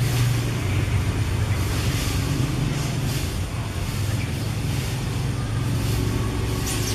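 A motor vehicle engine running steadily, heard as a low, even hum.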